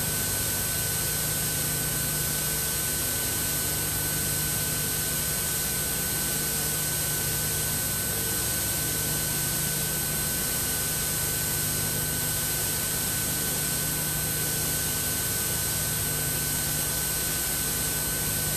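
Steady hiss with a low hum and a faint high whine: background noise from an old video tape transfer, unchanging throughout, with no tool or engine sounds.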